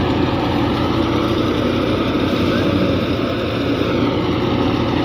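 Heavy farm machinery running steadily, a loud, even engine-driven din.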